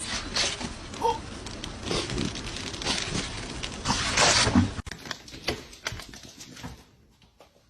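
A dog's short vocal sounds among clicks and rustling, with a cut to a quieter scene about five seconds in.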